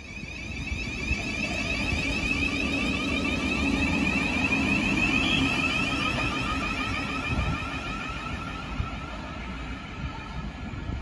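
Thameslink Class 700 electric train moving past close by, its traction motors giving a whine of several high tones over a low rumble of wheels on rail. The sound swells over the first few seconds and then eases off.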